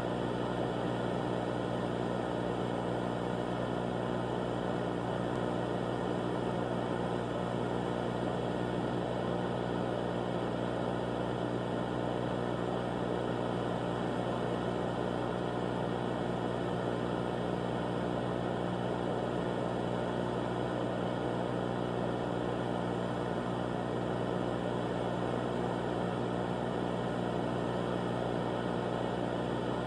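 A steady, unchanging low drone mixed with noisy hiss, with no breaks or changes in level: the dead-air sound of an emergency broadcast between announcements.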